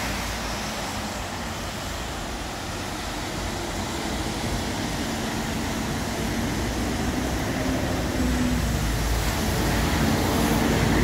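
Steady rain with city road traffic: an even hiss of rain and tyres on wet road, and a vehicle engine hum that grows louder through the second half.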